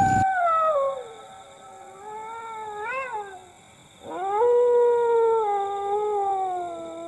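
Dog howling in long, drawn-out calls. A falling howl comes first, then a fainter one rising and falling about three seconds in, then a long howl from about four seconds in that slowly sinks in pitch.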